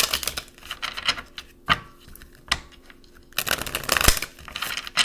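A deck of cards being shuffled by hand: two spells of rapid, crackly riffling clicks, one at the start and a longer one near the end, with a couple of single taps between.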